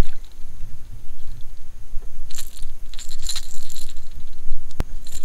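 Fishing tackle being worked during a retrieve with a baitcasting rod and reel: light metallic jingling about two to three seconds in and a sharp click near the end, over a steady low rumble of wind on the microphone.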